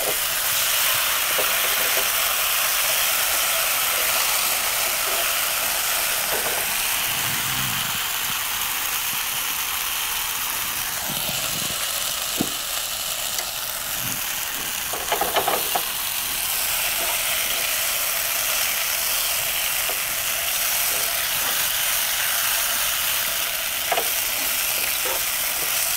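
Meatballs sizzling steadily in a hot frying pan, with a few light clinks of a utensil against the pan about halfway through and again near the end.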